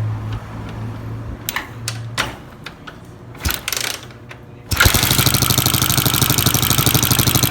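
Honda CG motorcycle's single-cylinder engine starting about two-thirds of the way in and running with a fast, even beat, after a steady low hum and a few clicks and knocks. The mechanic suspects worn pushrods behind the engine's noise.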